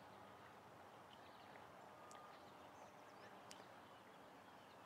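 Near silence: faint outdoor background hiss with a few faint, short high chirps and ticks scattered through it.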